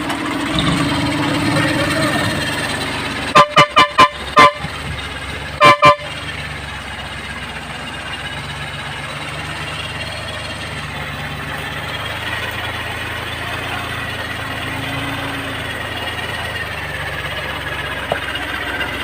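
A vehicle horn tooted in a quick run of about five short blasts a few seconds in, then two more just after, over a tractor engine running steadily.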